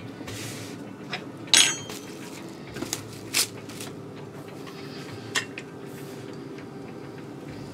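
Kitchen clean-up handling sounds: a handful of short clatters and crinkles as a metal spoon and utensils are moved and a sheet of plastic wrap is pulled out and spread on a wooden board, the loudest about a second and a half in and again about three and a half seconds in, over a faint steady hum.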